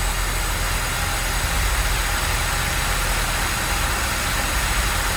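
Honda Civic 2.0 four-cylinder engine idling steadily with the lights switched on, loading the alternator during a charging-system test.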